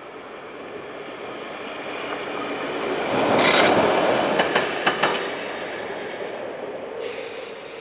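Train passing on the line. Its noise builds to a peak about halfway, with a quick run of sharp clicks from the wheels on the rails, then fades.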